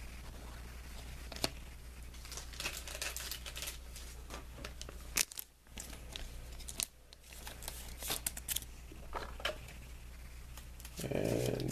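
Trading cards being handled by hand: a dry rustle with many scattered light clicks and taps.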